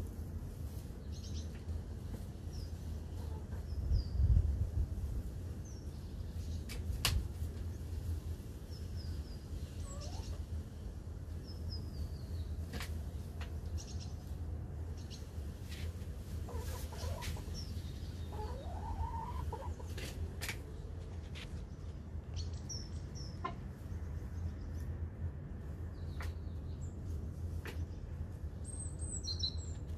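Domestic hens making a few soft clucking calls, with scattered sharp taps and short high chirps, over a steady low rumble. A louder thump comes about four seconds in.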